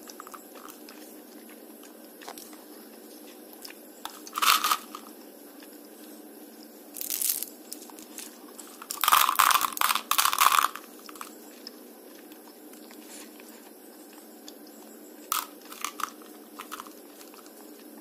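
Sugar-coated chewing gum balls being crunched between the teeth. There are a handful of short crunches spread several seconds apart, the longest and loudest about halfway through, then three quick small ones near the end.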